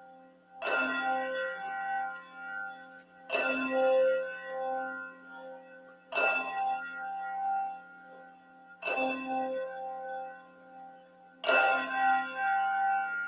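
A handbell rung five times, about every three seconds, each stroke ringing on and fading before the next.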